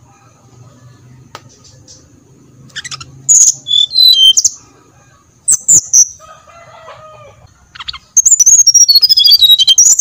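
Brown-chested jungle flycatcher singing loud, high whistled phrases in three bursts, the last a longer run of notes stepping downward near the end.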